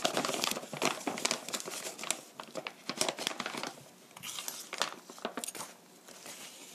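Crinkling and crackling of a paper flour bag and its plastic inner bag as it is opened and handled, busiest in the first few seconds and quieter after.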